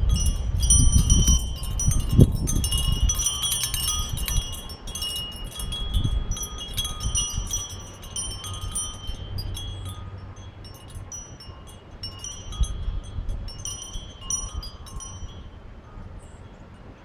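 Metal wind chimes ringing in the wind, their tubes struck over and over at several pitches. The ringing is busiest at first and thins out to a few scattered notes in the last few seconds. A low rumble of wind on the microphone swells in the first few seconds and again briefly twice.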